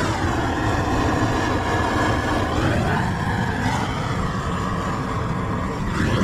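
Long-handled gas torch burning with a loud, steady rushing roar, its tone sweeping down and up a few times.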